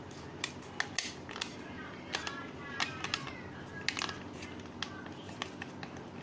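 Light plastic clicks and taps from a swappable lens being worked and pressed into a plastic sport-sunglasses frame, a scattering of sharp ticks throughout.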